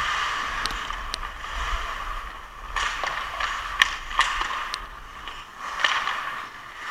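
Ice hockey skates scraping and carving on the ice, with a scattering of sharp clacks from sticks and puck during play.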